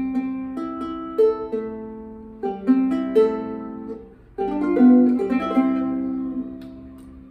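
Jarana segunda, a four-course Son Jarocho guitar tuned G-C-E-A, played in a string of plucked chords and single notes that are left to ring. The last chord fades out near the end.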